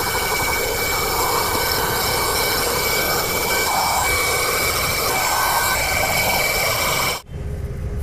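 Autofy Dusto 120 W handheld 12 V car vacuum cleaner running steadily with a high whine as its nozzle sucks dust and debris off a car floor mat. The motor noise stops suddenly about seven seconds in.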